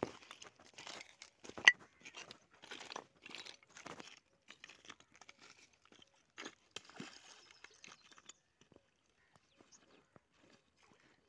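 Footsteps in sandals on loose flat stones: irregular crunching and clinking of the stones underfoot, with one sharp clack a little under two seconds in. It thins to a few scattered clicks over the last few seconds.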